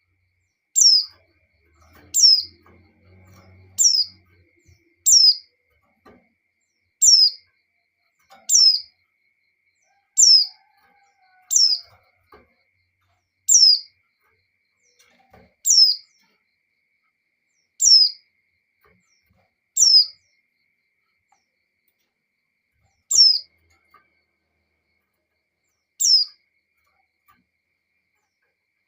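A female white-eye (pleci) giving single short high calls, each sliding downward in pitch, repeated every two seconds or so, about fourteen in all with the gaps widening toward the end. This is the call of a female in breeding condition calling for a male.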